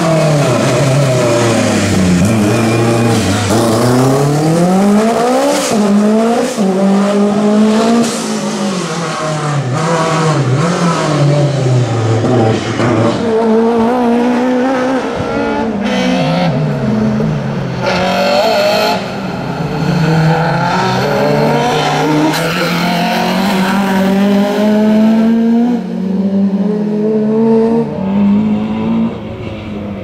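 Race car engines revving hard through slalom gates, the pitch repeatedly climbing and dropping as the cars accelerate, lift off and change gear, with sharp cracks in between. The first part is a Lancia Delta S4 rally car.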